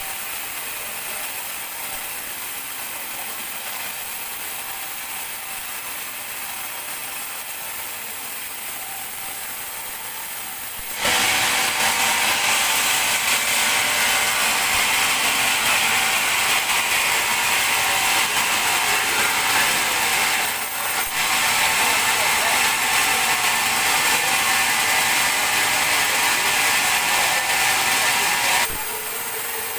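Large sawmill bandsaw running, then cutting through a teak log: about eleven seconds in the sound jumps much louder and hissier, dips briefly partway through, and falls back to the plain running level just before the end.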